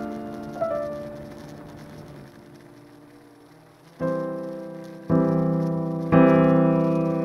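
Backing music of keyboard chords. A chord fades away into a quiet stretch, then from about four seconds in new chords are struck about once a second, each louder than the last.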